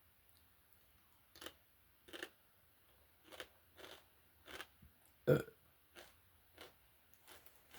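Potato chips being chewed close to the microphone: a string of crisp crunches every half second or so. A little past the middle comes one short, louder burp.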